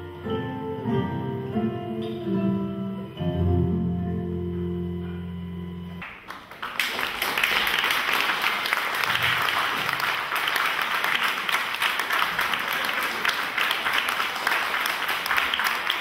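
Guitar-led music holding its closing chords over a steady bass, ending about six seconds in; then an audience applauding steadily to the end.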